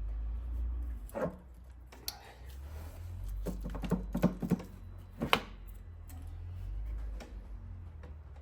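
Metal engine parts and tools being handled. There are scattered sharp clicks and knocks: one about a second in, a quick run of taps around the middle, and the loudest knock soon after, over a low hum.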